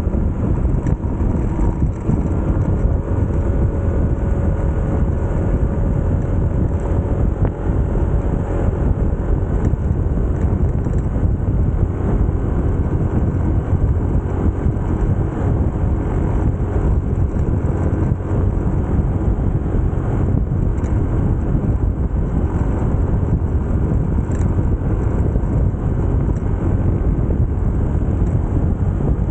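A motorcycle under way: steady wind rushing over the microphone, with the engine humming evenly beneath it.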